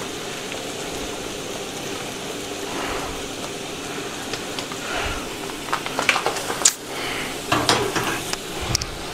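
Chopped champignons frying in a pan on the gas stove, a steady sizzle. Over it, a paper flour bag rustles and a plate knocks a few times near the end.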